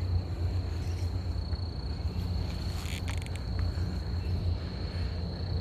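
Insects, likely crickets, keeping up a steady thin high trill over a constant low rumble, with a few faint clicks about three seconds in.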